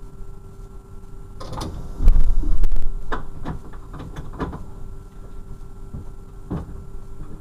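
Cab of a standing DB class 628 diesel railcar: a steady idling hum with a faint constant tone, broken about a second and a half in by a cluster of mechanical clunks and knocks with a heavy low thump, the loudest sound, and one more knock near the end.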